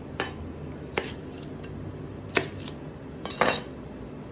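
Sharp knocks and clatters of a chef's knife and hands on a plastic cutting board while an anglerfish is cut up: four hits, the last a longer clatter near the end, over a steady low hum.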